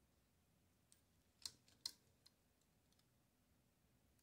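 Light metal clicks of a Torpedo Dynacord S typewriter's tabulator rod and its small spring being handled and unhooked by hand: two sharp clicks about a second and a half and two seconds in, with fainter ticks just before and after.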